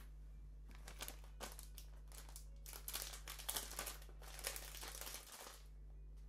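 Plastic packet of sliced dried red chili crinkling as it is handled, in irregular crackles for about five seconds.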